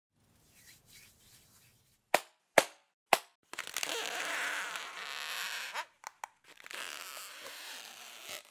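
Three sharp clicks about half a second apart, then a scratchy rustle of wire and foliage as wire is wound around a bonsai branch. Two more small clicks and a quieter rustle follow near the end.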